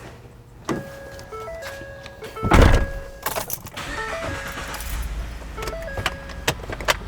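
A short electronic chime melody of stepped beeping tones repeating. A loud thump comes about two and a half seconds in, and a low steady rumble follows.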